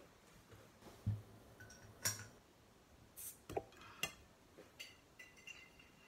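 A few separate knocks and clinks of a glass bottle and tableware being handled on a table, the sharpest about two seconds in, with a brief hiss a little after three seconds.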